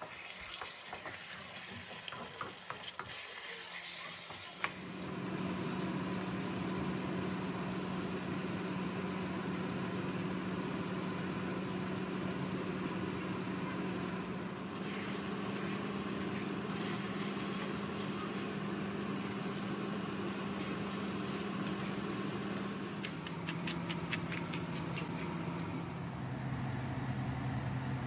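Beef liver with onions and peppers frying in a wok, stirred with a wooden spoon, with scraping and clicks in the first few seconds. From about five seconds in, the frying runs louder under a steady mechanical hum.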